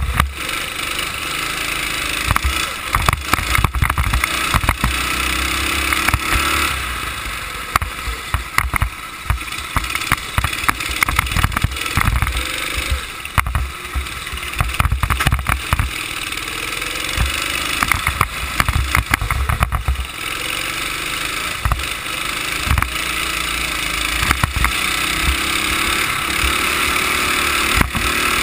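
Go-kart engine running at racing speed, heard from the kart itself, its pitch rising and falling through the corners, with heavy buffeting and frequent knocks on the microphone.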